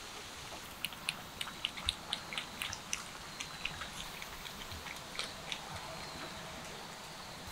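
Cats lapping liquid from plastic bowls: a quick run of small wet clicks, about four a second, that fades after about five seconds, over a steady background hiss.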